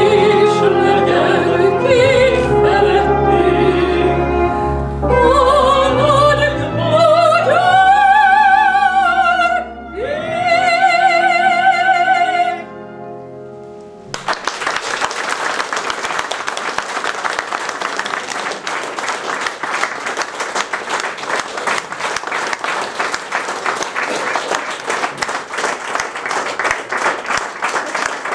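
A woman and a man singing an operatic duet with wide vibrato over instrumental accompaniment, ending on a long held note about twelve seconds in. About two seconds later the audience starts applauding and keeps on clapping steadily.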